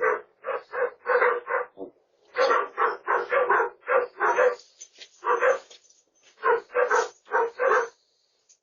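A dog barking rapidly and repeatedly, about twenty sharp barks in quick runs with short pauses between them.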